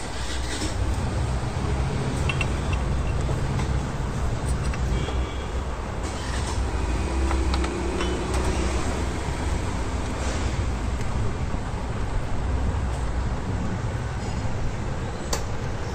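Steady low rumble of vehicle noise, with a few faint clicks.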